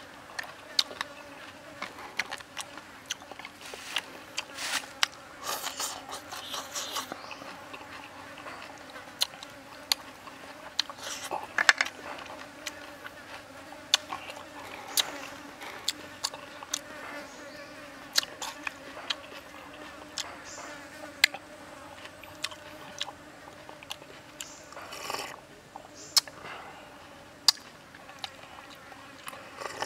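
Close-up chewing and crunching of fried frog, with many sharp, irregular clicks and smacks, over a steady low buzzing drone.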